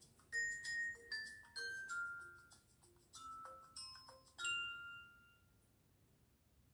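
Background music: a short run of ringing, bell-like notes, mostly stepping downward in pitch, with the last note ringing out and fading about five seconds in.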